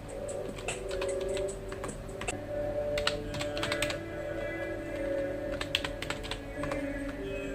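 Computer keyboard typing in irregular runs of keystrokes with short pauses between them, over soft background music of long held notes.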